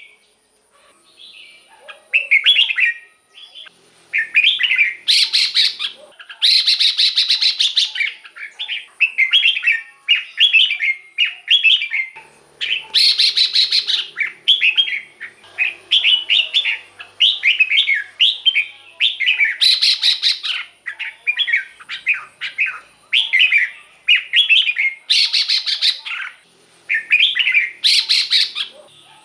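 Red-whiskered bulbul singing without pause: quick, short whistled phrases one after another, broken every few seconds by harsher rattling, chattering bursts.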